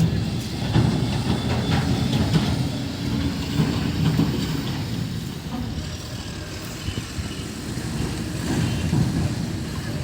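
Heavy tipper truck's diesel engine running with a steady low rumble.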